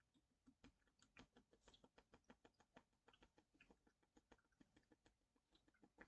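Faint, irregular rapid clicking, several small ticks a second, in near silence.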